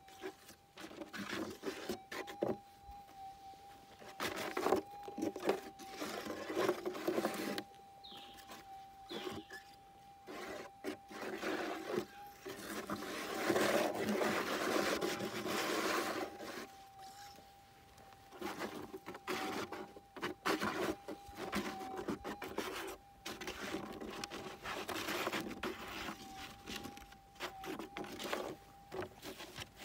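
Gold metal detector's steady threshold tone, a thin unbroken hum, with irregular scraping and rustling noises over it, heaviest about halfway through.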